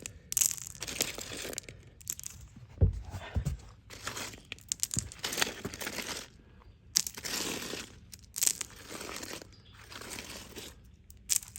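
Irregular crunching and scraping of gravel and dirt, with two dull low thumps about three seconds in.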